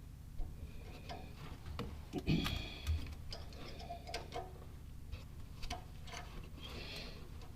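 Irregular metal clicks and short scrapes of a wrench turning a thread tap in the EGR tube port of a Ford 4.6-liter V8's exhaust manifold, the tap binding as it is worked back out of a crooked start.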